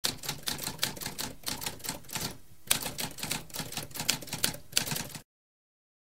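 Typewriter keys typing in quick succession, several strokes a second, with a brief pause about halfway, then typing again until it stops suddenly near the end.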